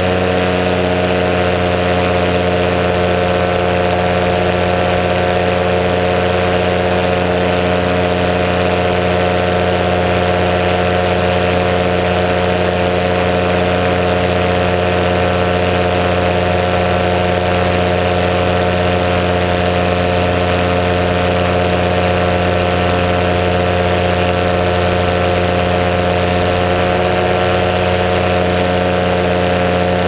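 Ultralight aircraft engine running steadily in flight, a constant hum whose pitch does not change.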